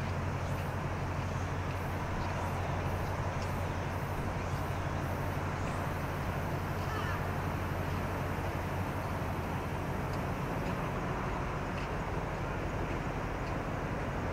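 Steady low engine hum of a large research ship passing offshore, over an even outdoor hiss.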